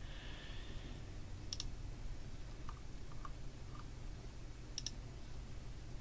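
Computer mouse button clicking twice, about a second and a half in and again near the end, each click a quick press-and-release pair, with a few fainter ticks between.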